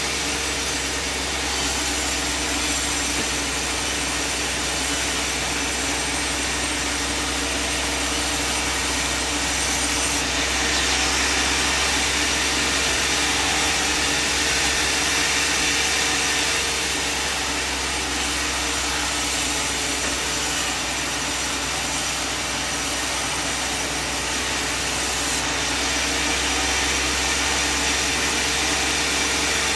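Band sawmill running steadily, sawing through timber, with a constant engine and blade drone.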